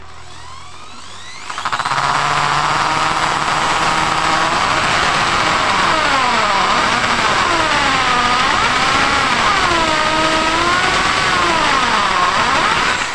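A 500-watt AEG SB 500 RE impact drill running under load, driving a self-drilling screw into steel C-channel. The motor starts about a second and a half in, and its whine wavers up and down in pitch as the load and trigger change, then stops near the end.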